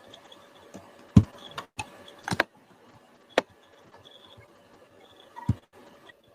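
Scattered sharp clicks of a computer mouse and keyboard, about five over several seconds, with a faint steady hum behind them.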